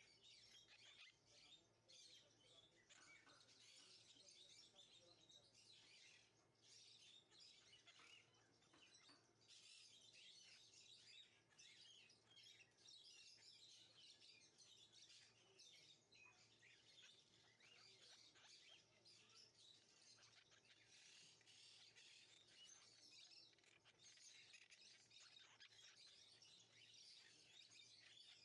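Very faint birds chirping throughout, over a low steady hum.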